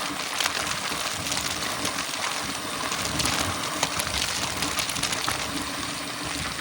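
Mountain bike rolling fast downhill on a dirt trail: steady tyre and wind noise with frequent clicks and rattles from the bike as it runs over bumps.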